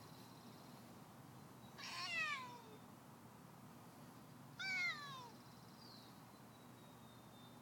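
A cat meowing twice, each meow a single call falling in pitch, the second about two and a half seconds after the first.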